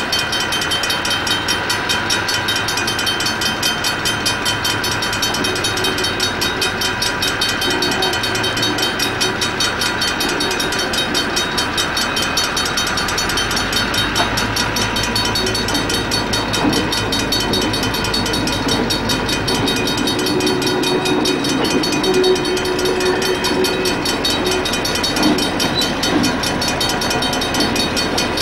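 A DC class diesel-electric locomotive's engine running steadily with a rhythmic throb as the locomotive moves slowly.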